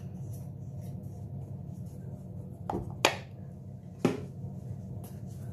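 Three short clicks and taps from handling a plastic concealer tube, over a steady low hum.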